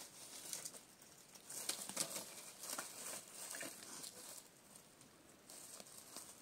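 Dry sticks and branches being gathered by hand, knocking and crackling against each other, with dry leaf litter rustling and crunching underfoot; irregular light cracks, the loudest about two seconds in.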